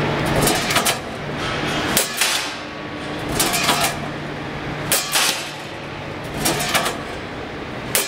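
Guillotine shear cutting sheet metal into strips, one cutting stroke about every one and a half seconds, each a quick pair of sharp metallic clacks, over a steady low hum from the machine.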